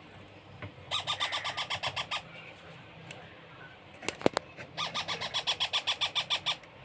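Baby parrot chick giving rapid, rhythmic begging calls, about eight pulses a second, in two runs of one to two seconds each, typical of a chick wanting food during hand-feeding. Between the runs come a few sharp clicks.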